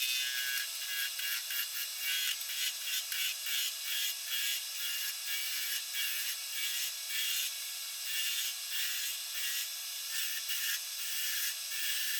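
A turning tool cutting a glued-up wood pen blank spinning on a lathe at about 1,800 RPM: a thin, hissy scraping broken into many short, irregular strokes as the tool takes repeated light cuts.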